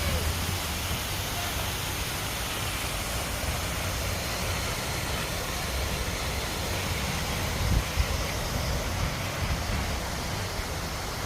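Waterfall: a steady, dense rush of falling water, with a low rumble underneath and a brief bump about eight seconds in.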